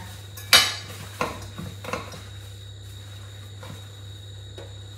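Kitchen dishes clinking and knocking: one sharp clink about half a second in, the loudest, then a couple of lighter knocks over the next second and a half and a few faint ones later, as chicken is handled and patted dry beside a bowl and plates.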